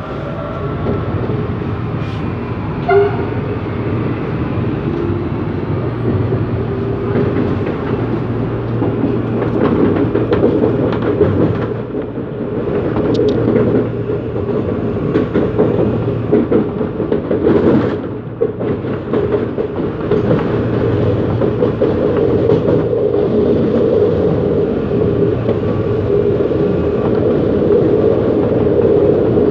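Inside a CPTM Series 8500 (CAF) electric multiple unit under way, the traction motors drone with a heavy growl and a whine that rises in pitch over the first several seconds. Wheels click and knock over the rails.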